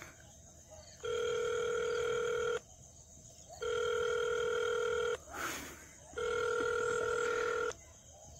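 Mobile phone ringback tone over the phone's loudspeaker: a steady low tone sounding three times, each about a second and a half long with about a second's pause between, the sign that the called number is ringing and not yet answered. A brief rustling noise falls between the second and third ring.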